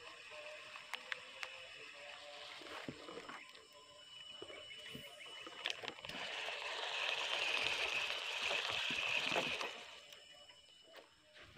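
Spinning reel and line whirring for about three seconds, starting about six seconds in, after a few scattered light clicks of tackle being handled.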